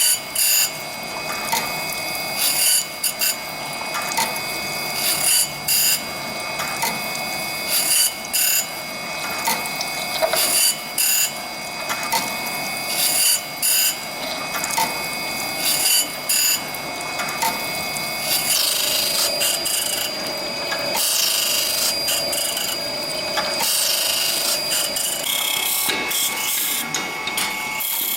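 A workshop machine working on a saw blade: a steady high hum with a sharp click roughly every second. About two-thirds of the way through, it changes to a denser, hissing grind.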